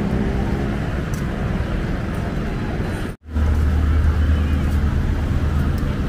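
Street-market background noise: a steady low traffic rumble with faint voices. The sound drops out for a moment about three seconds in, and a heavier low hum carries on after it.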